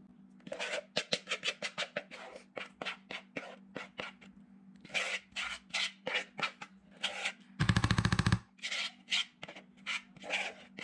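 A spoon scraping thick batter out of a plastic mixing bowl into a metal loaf pan: a string of short scrapes and knocks, with a loud rattling burst about three quarters of the way through.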